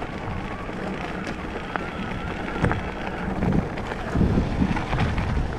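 Mountain bike running down a steep dirt and gravel track: tyres rumbling over the rough ground and the bike rattling over bumps, with heavier knocks about four seconds in. Wind buffets the microphone throughout.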